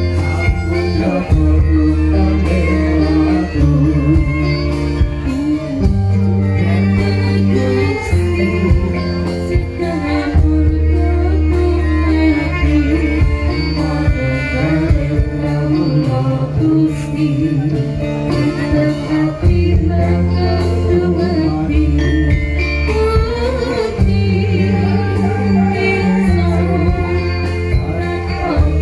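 Live Javanese gamelan band with a singer, amplified through a PA loudspeaker. It plays with a deep bass line and a steady percussive beat.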